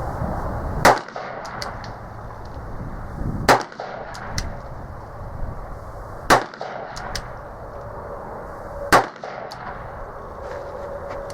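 Uberti replica 1875 Schofield revolver firing .45 Long Colt, four single shots about two and a half seconds apart.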